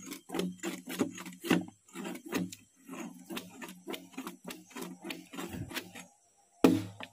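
Machete chopping repeatedly into wood, about three quick strikes a second, with one harder strike near the end.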